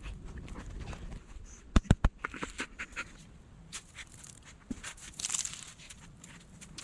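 Irregular crunches and clicks, with a few sharp thumps about two seconds in.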